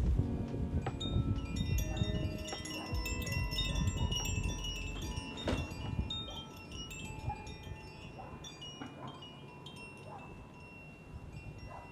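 Wind chimes ringing, many small high tones struck at random and overlapping, slowly fading. A low rumble beneath them dies away about halfway through.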